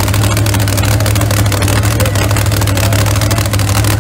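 Large engine running at a steady idle: a loud, even, deep drone with no revving.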